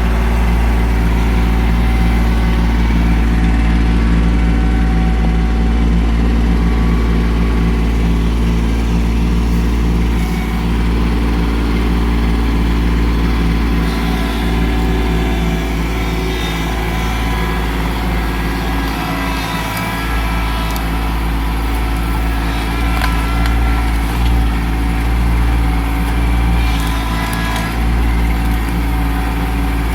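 Kubota LX2610 compact tractor's three-cylinder diesel engine running steadily under way, with only small changes in loudness.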